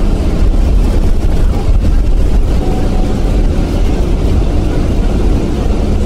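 Inside a moving bus: the steady low rumble of the engine and the road.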